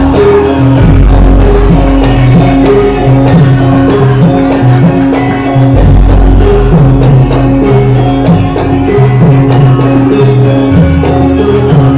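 Javanese gamelan music for a lengger dance: repeating pitched notes over a held tone, with a steady beat of drum and percussion strikes.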